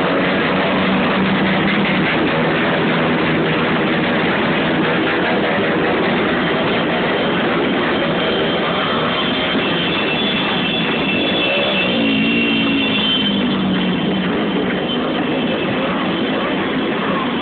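Motorcycle engines running as a line of motorcycles rides past, a steady loud din with an engine note that rises and falls about twelve seconds in.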